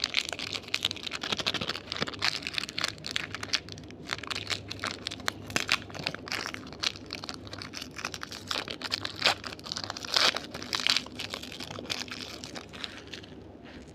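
Candy and its plastic wrapper handled close to the microphone: dense, irregular crinkling and crackling that thins out and stops shortly before the end.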